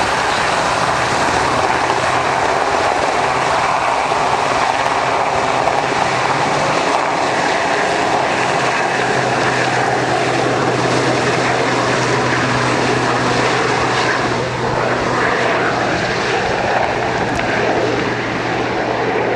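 Aircraft engine running loudly and steadily. Its low hum shifts slightly in pitch about nine seconds in.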